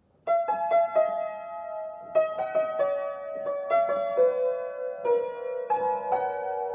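Upright acoustic piano played slowly by hand in the middle of the keyboard: simple chords and single notes struck about every half second, each left to ring into the next, starting about a quarter second in.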